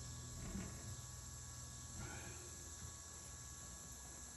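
Faint, steady high-pitched chirring of insects, with a weak low hum underneath.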